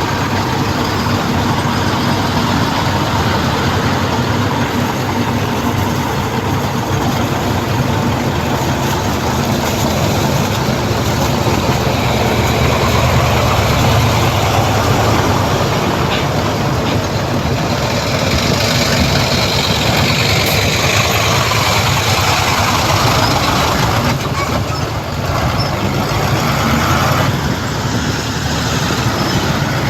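Heavy earthmoving machinery, a bulldozer and dump trucks, working with their diesel engines running: a steady low drone under dense mechanical noise.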